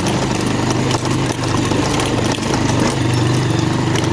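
Motorcycle engine running steadily at low revs while the bike rides slowly over a rough dirt path.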